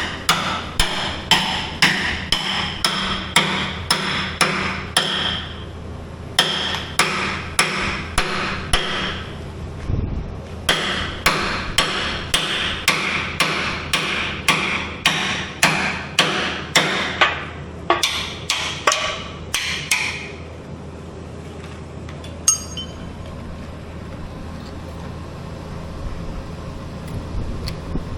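Hand hammer striking metal in steady runs of about two to three blows a second, broken by two short pauses, then one ringing clang near the end. This is hammering during axle bushing replacement on a Skyjack SJIII 3219 scissor lift.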